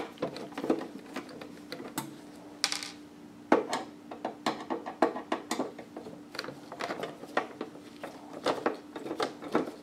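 Irregular clicks, taps and a short scrape of a screwdriver working screws out of the metal top housing of a George Foreman Evolve grill, over a steady low hum.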